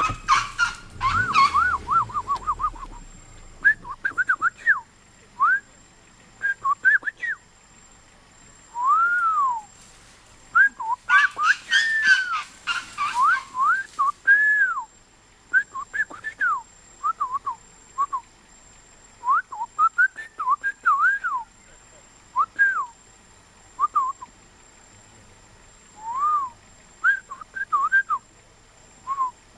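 A long series of clear whistled notes, each a short slide up and down, some held for about a second, coming irregularly with a quick warbling run near the start. Bursts of noise come near the start and again around the middle.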